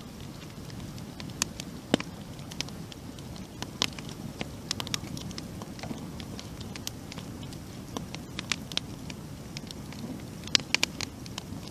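Wood fire burning in a fireplace: a steady low rumble of flames with sharp, irregular crackles and pops from the burning logs, a few louder pops about two seconds in and near the end.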